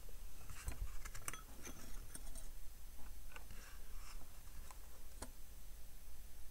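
Scattered faint clicks and light taps of multimeter test probes touching pads on an engine control unit's circuit board, a few of them sharper, over a low steady hum.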